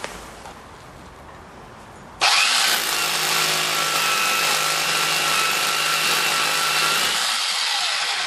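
Mains-powered SDS drill boring the first couple of inches of a hole into a concrete floor. It starts suddenly about two seconds in, runs steadily for about five seconds, and winds down near the end.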